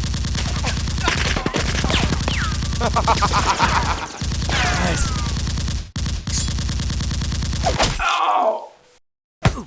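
Rapid automatic gunfire, sustained with brief breaks about three times and with short falling-pitch sounds mixed in. It stops about eight seconds in, followed by a falling groan-like cry.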